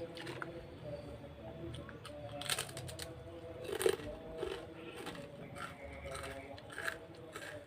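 Close eating sounds: a person biting and chewing food with scattered short crunches and clicks, over soft background music.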